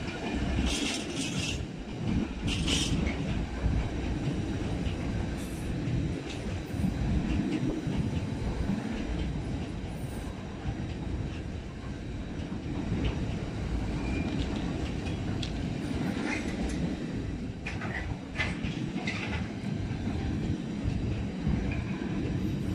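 Double-deck car-carrier wagons of a Sylt Shuttle train rolling past with a steady rumble of wheels on rail and clicking over the joints. Short squeals from the wheels come a few times about a second in and again about two-thirds of the way through.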